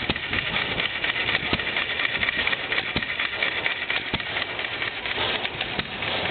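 Small hit-and-miss stationary gas engine running, giving a sharp firing stroke about every second and a half, over a steady clatter.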